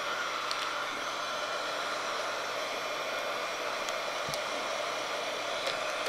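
Small handheld heat gun running steadily, blowing hot air onto sublimation shrink wrap around a mug to shrink it.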